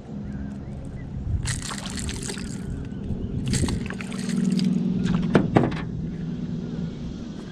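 Hooked striped bass splashing at the surface beside a kayak while being brought in, in several bursts of splashing, with two sharp knocks a little past halfway.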